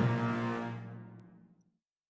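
Game music ending on a held chord that fades away over about a second and a half, then silence.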